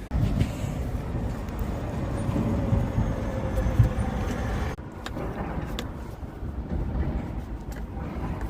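Low, steady rumble of a vehicle engine running, cut off abruptly about five seconds in and then resuming.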